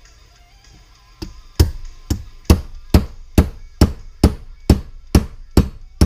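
A hammer tapping a pin out of a shotgun's lock mechanism: about a dozen sharp, even strikes, roughly two a second, starting with a lighter tap a little over a second in.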